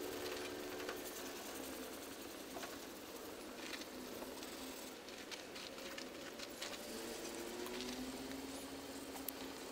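Hand-sanding of a Fiat Tipo's steel door panel: sandpaper scratching over the bodywork in uneven strokes, with scattered small clicks and taps.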